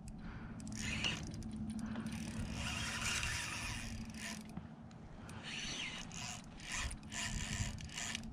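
Fishing reel clicking and whirring in patches while a big jack crevalle pulls against a bent rod, its mechanism working under the load of the fish.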